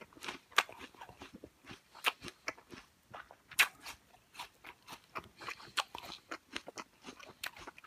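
Irregular sharp clicks and crunches close to the microphone, a few each second, with no steady sound beneath them.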